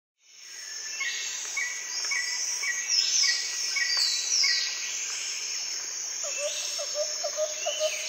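Tropical forest ambience fading in: a steady high insect drone with birds calling over it. One bird repeats a short note about twice a second, others give falling whistles, and a lower rapid chirping joins about six seconds in.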